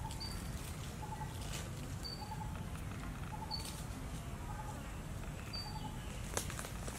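Outdoor ambience with a steady low rumble and birds calling over and over: a short double note about once a second and a brief high peep every second or two. A few faint clicks and scratches come from a young macaque gnawing at the husk of a green coconut.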